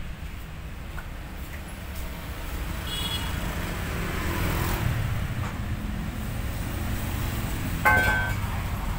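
Steady rumble of road traffic, with a short ringing tone about half a second long near the end.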